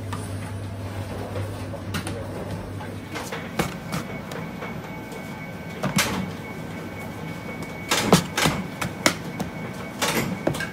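Bakery kitchen work noise: scattered knocks and clatters, several in quick succession near the end, over a steady machine hum that stops about three seconds in.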